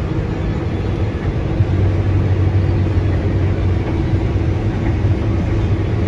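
Combine harvester heard from inside its cab, running with a steady low drone while harvesting corn and unloading grain through its auger on the go.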